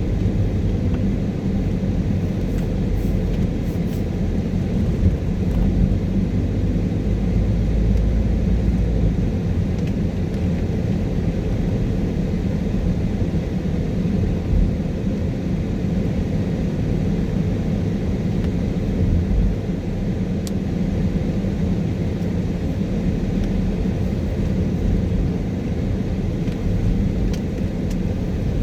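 Car driving on a wet road in rain, heard from inside the cabin: a steady low rumble of engine and tyres with a light hiss of spray.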